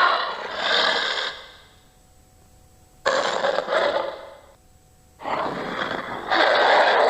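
Made-up Gruffalo monster noises: rough, raspy breaths or growls without a clear pitch, in three bursts of one to two seconds each.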